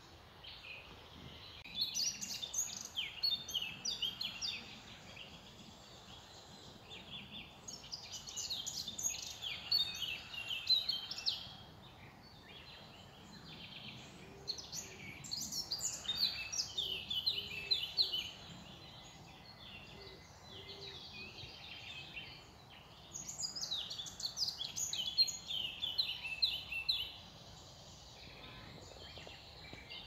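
Small songbird singing in four bouts of rapid, varied high notes, each a few seconds long with pauses between, over a faint steady background hiss.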